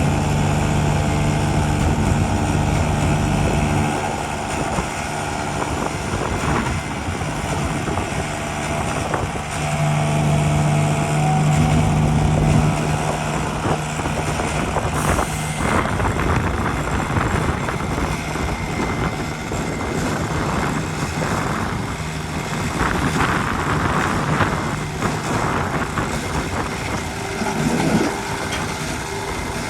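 Heavy diesel earthmoving machinery running, its engine tone strong in the first few seconds and again about a third of the way in. In the second half it gives way to a rougher noise with many short clattering knocks.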